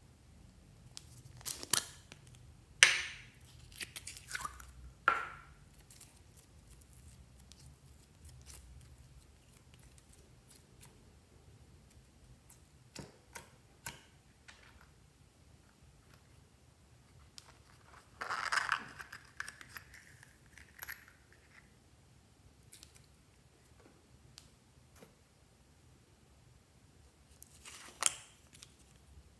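Intermittent handling sounds of plastic slime cups and sticky slime: a cluster of sharp plastic clicks and snaps early on, a longer scratchy crackle in the middle, and a sharp snap near the end as a cup's lid is pulled off.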